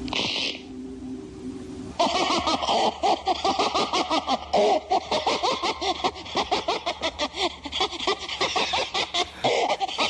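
Several voices laughing together in quick, repeated peals, starting about two seconds in. These are the possessed cabin objects of Evil Dead 2, led by the mounted deer head, with Ash joining in.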